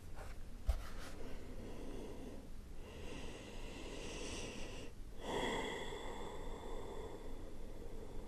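A woman's deep breathing in and out through the nose, one long breath from about three seconds in, with a soft bump just before the first second.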